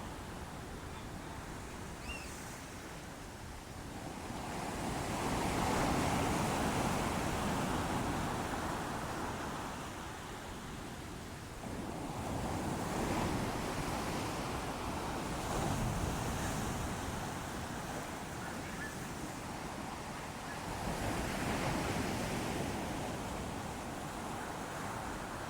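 Ocean waves breaking and washing on the shore, with louder surges about four times as each wave comes in and falls back.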